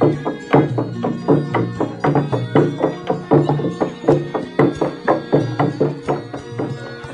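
Gejok lesung: several wooden pestles pounding a hollow wooden rice trough in an interlocking rhythm, a steady stream of woody knocks with a short pitched ring, several strikes a second.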